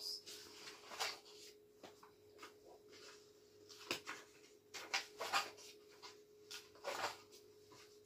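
Paper pages of a coil-bound printed book being turned one after another: several short, soft rustles, about one a second.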